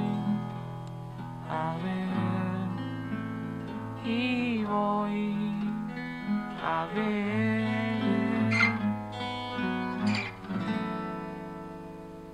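Steel-string acoustic guitar strummed in chords while a voice sings a wordless melody over it. About eleven seconds in, the last chord is left to ring and fade away, ending the song.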